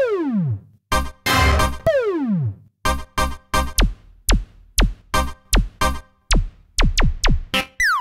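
Roland SRX Dance Trax software synth playing its 'Hit&FX Menu' preset, a string of synth hits and effects. Near the start and again about two seconds in comes a falling pitch sweep, with a noisy burst between the two. From about three seconds there is a quick series of short falling zaps, roughly two a second, each over a low thump.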